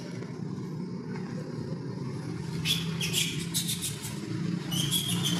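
A steady low engine-like rumble, with short high chirps about halfway through and again near the end.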